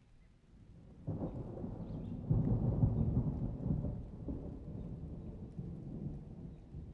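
A low rumble that sets in about a second in, swells between two and four seconds and then slowly fades.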